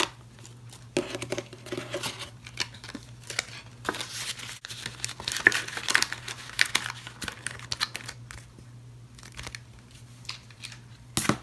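Paper banknotes rustling and crinkling as a stack of bills is handled and slid into a cash envelope, with scattered small taps and clicks, then a sharp click near the end.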